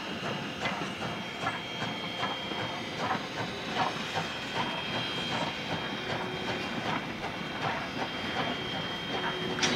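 Strasburg Rail Road No. 89, a 2-6-0 steam locomotive, working past with a freight train: a regular beat of sharp strokes over a steady hiss of steam.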